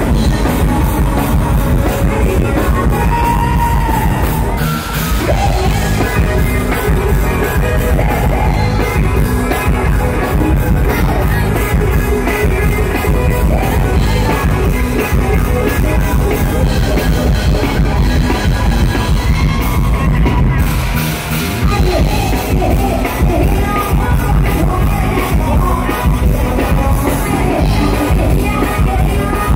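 Loud live band music with singing: a Thai mor lam sing band playing over a heavy, steady bass beat. The music dips briefly twice, about five seconds in and again about twenty-one seconds in.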